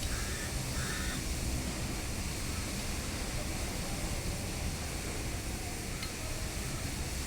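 Wind buffeting the microphone outdoors, a steady rumbling noise, with two faint short calls, likely from a bird, within the first second.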